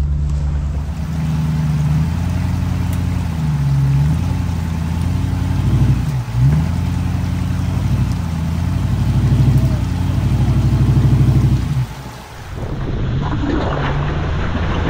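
Off-road vehicle engines working over rocks: a low engine note rising and falling as the throttle is worked again and again, with a deep dip about six seconds in. Near the end it drops away briefly and gives way to another engine running, with hiss from wind on the microphone.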